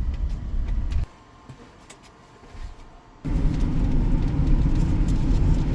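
Low rumble of a van driving slowly. It drops away abruptly about a second in, leaving a much quieter stretch with a few faint ticks, then comes back abruptly about three seconds in.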